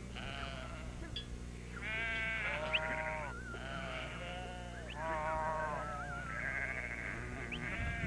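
A flock of sheep bleating, many calls one after another and overlapping, some high and some lower.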